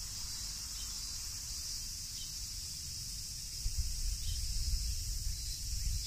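Cicadas calling in a chorus, a steady high buzzing hiss that does not let up, with low wind and handling rumble on the phone microphone that grows about halfway through.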